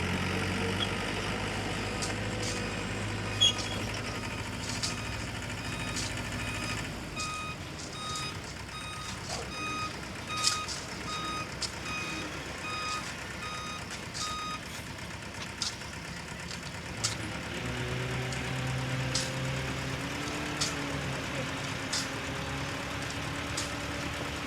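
Diesel engines of earthmoving machinery running, with a vehicle's reversing alarm beeping about twice a second for several seconds in the middle. Scattered sharp knocks sound throughout.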